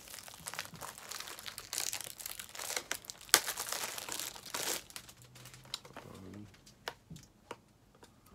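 Plastic shrink-wrap being torn and crinkled off a Blu-ray case, with one sharp snap about three seconds in. It thins out to a few separate clicks near the end.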